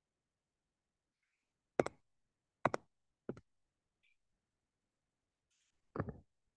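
Computer mouse clicking: five short, sharp clicks at irregular intervals, with near silence between them.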